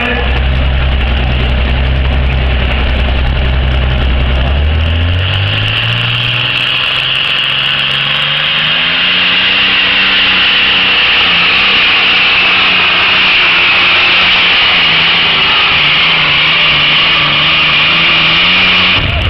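A modified V12 World War 2 aircraft engine in a pulling tractor runs at low revs, then revs up smoothly over a few seconds as the tractor pulls the sled down the track. It holds a loud, high, steady note with a strong hiss, then drops back sharply at the very end as the throttle comes off.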